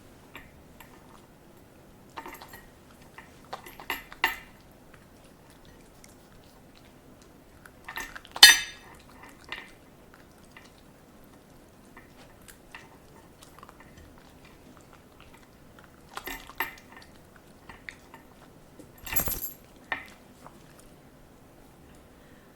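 A poodle chewing and crunching broccoli: short sharp crunches and clicks come in scattered bites with pauses between them. The loudest crunch is about eight seconds in, and more bites come near the end.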